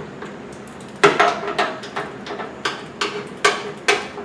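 Irregular sharp metallic clicks and clinks, roughly three a second, starting about a second in: a hand tool working the last screw of the door lock actuator loose inside a car door, metal knocking on metal.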